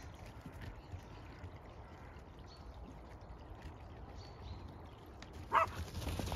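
A single short dog bark near the end, over a quiet, low, steady rumble.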